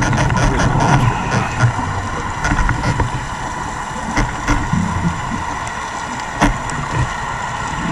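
Muffled underwater rushing and rumbling picked up through a housed camera resting on the seabed, with a scuba diver's fin sweeping close past it at the start and again about four seconds in.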